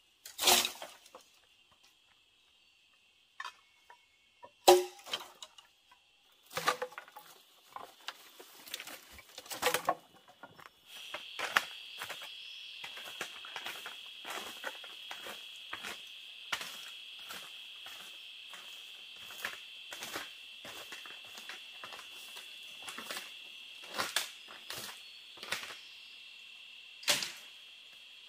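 Insects trilling steadily in a high, even band that grows louder partway through, with scattered sharp knocks and taps throughout, the loudest about half a second in, about five seconds in and near the end.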